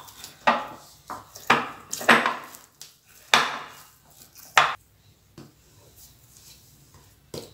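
Hands kneading soft, sticky maida dough in a glass bowl: a string of irregular slaps and squishes, louder in the first half and fainter after about five seconds. The dough is still loose and tacky at this stage and firms up as it is worked.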